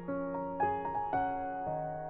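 Soft background piano music, a slow gentle melody with notes struck about every half second.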